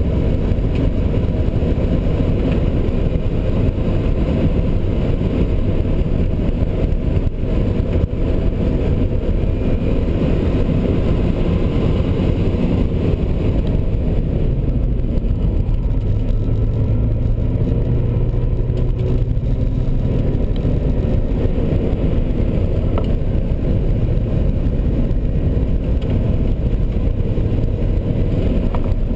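Car engine running under load with tyre and wind noise, heard from inside the cabin at track speed: a loud, steady low rumble.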